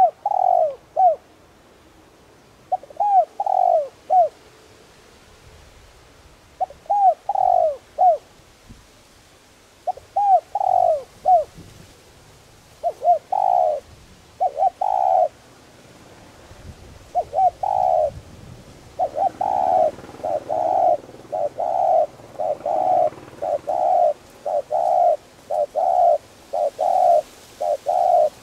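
Spotted dove cooing: phrases of three or four short coos come every few seconds. From about two-thirds in, the coos come faster in an unbroken run, about two a second.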